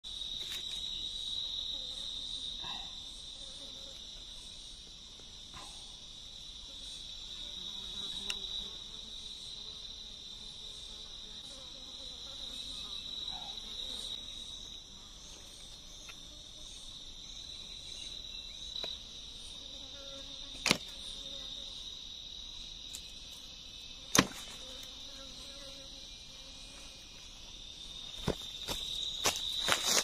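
Steady high-pitched drone of an insect chorus, a thinner band above it with faint rapid pulsing. Sharp wooden knocks from bamboo stakes being handled cut through it, two loud ones after about twenty seconds and a quick cluster near the end.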